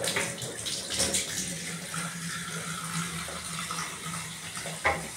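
Steady rush of running water with a low steady hum under it; a short knock near the end.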